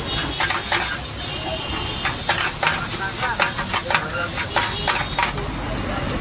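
A metal spatula clinks and scrapes against a frying pan as an egg mixture is stirred and spread, in a quick irregular series of strikes over a steady sizzle of frying.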